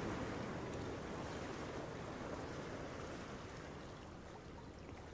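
A steady rushing noise that slowly fades away.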